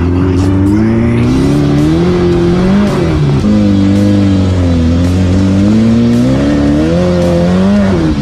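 Off-road race car's engine revving hard as the car accelerates away over dirt, its pitch rising and falling several times as it climbs through the gears.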